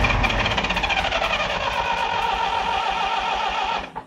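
Starter motor cranking the John Deere 717 tractor's diesel engine, with a fast even chuffing pulse and a wavering starter whine; the engine will not keep running on its own. The sound drops away suddenly near the end.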